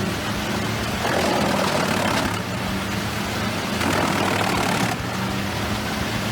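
Wood chipper's engine running steadily, with a louder rushing noise swelling up and dying away several times.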